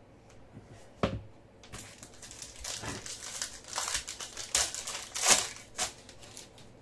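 Foil wrapper of a trading-card pack torn open and crinkled by hand: a stretch of crackling rips, the loudest tear about five seconds in, after a sharp knock about a second in.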